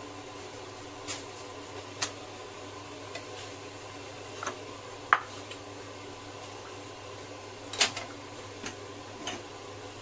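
Scattered knocks and clinks of kitchen ware as peeled shrimp are handled on a wooden chopping board and put into a porcelain bowl: about seven in all, the loudest a short ringing clink about five seconds in. Under them runs a steady, even hum.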